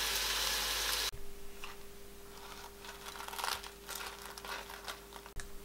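Hot cooking oil sizzling as breadcrumb-coated potato-cheese balls are deep-fried and lifted out with a wire strainer; the sizzle cuts off about a second in. After that there is only faint scattered crackling over a faint steady hum.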